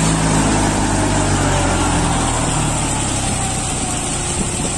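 New Holland four-wheel-drive tractor's diesel engine running steadily.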